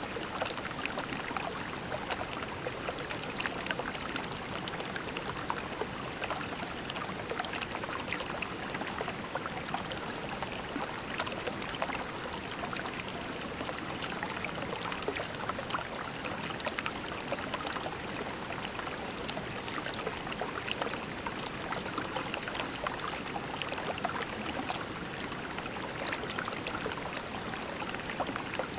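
Shallow creek water flowing over pebbles: a steady, even babbling and trickling.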